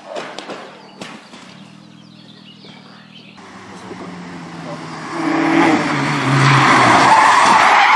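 A rally car rolling over, with a few sharp knocks of impact in the first second. Then a Citroën rally car's engine comes on hard, rising and growing loud about five seconds in as the car drives fast through a bend with tyre noise.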